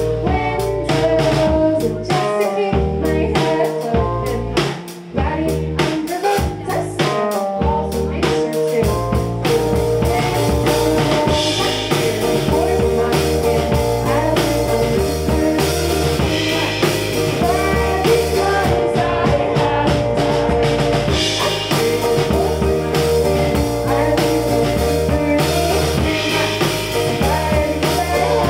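Live indie rock band playing: a woman singing over guitar, electric bass and drum kit. The first several seconds come in stop-start hits, then from about nine seconds in the band plays steadily, with cymbals washing in every few seconds.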